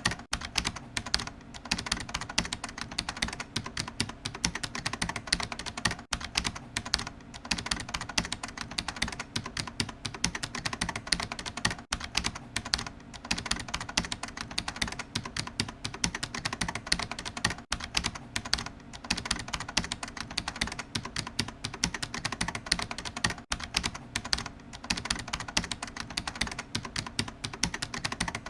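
Computer keyboard being typed on quickly and continuously, a dense run of key clicks with a few brief pauses.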